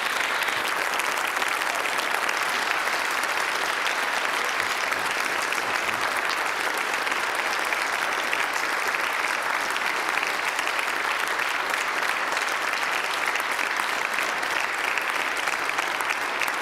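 Congregation applauding steadily, a sustained round of clapping that eases slightly near the end.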